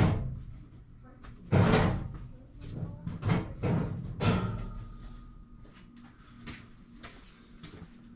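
Workshop knocks and clatter from brake-bleeding work on a car: a sharp knock at the start, then several short noisy bursts and knocks between about one and a half and four and a half seconds in, dying away to quiet background.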